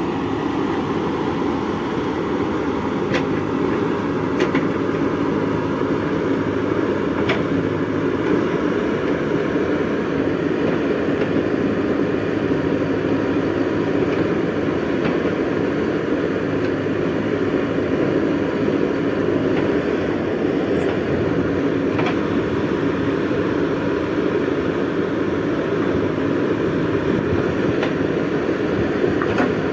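JCB 3DX backhoe loader's diesel engine running steadily under load while the backhoe arm digs soil, with a few faint knocks from the bucket and linkage.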